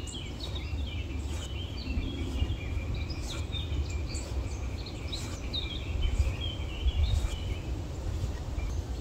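Small birds chirping and calling again and again, with short quick falling notes, over a steady low rumble.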